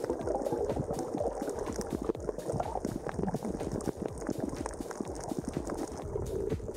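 Muffled bubbling and gurgling of water heard through a camera held underwater, with a dense patter of small clicks and crackles.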